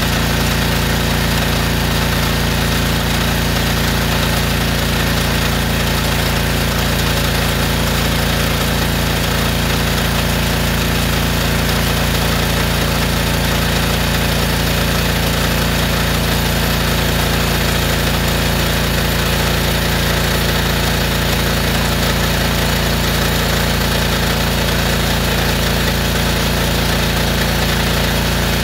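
Honda-engined gas pressure washer, rigged as a drain hydro jetter, running steadily while it jets water through a hose fed into a clogged drain pipe; a constant engine hum under a heavy hiss.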